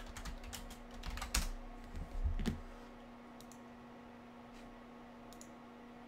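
Typing on a computer keyboard: a quick run of keystrokes over the first two and a half seconds, then a few single clicks spaced out, over a steady low hum.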